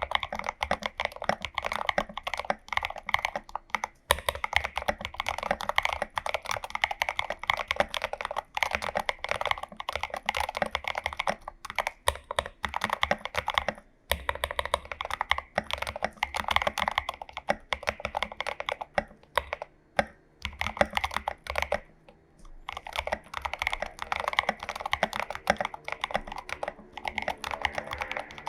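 Fast typing on a mechanical keyboard, a Glorious GMMK Pro with lubed and filmed Prevail Epsilon linear switches and SA profile keycaps: a dense run of keystrokes that stops briefly a few times.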